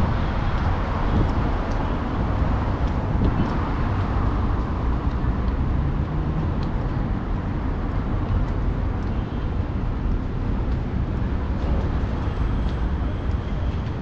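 Steady city street ambience: an even, low rumble of road traffic.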